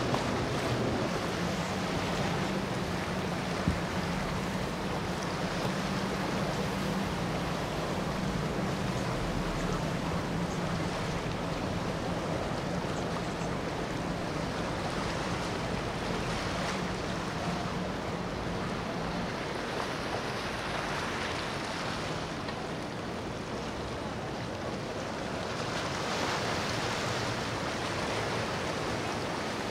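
Passing motorboats: a steady low engine drone over the rush and splash of their wakes on the water. The drone fades out about two-thirds of the way through, leaving the water noise.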